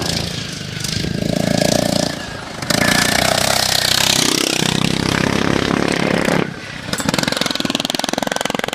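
Racing lawn mower engines running hard, the sound changing abruptly twice.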